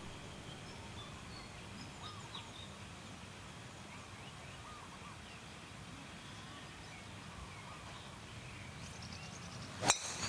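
Quiet open-air ambience with scattered bird chirps, then near the end a single sharp crack as a golf driver strikes the ball off the tee.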